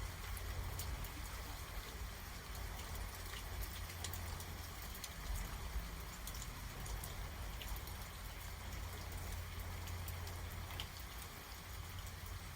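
Rain falling in a thunderstorm: a steady hiss with scattered drops ticking, over a low steady rumble.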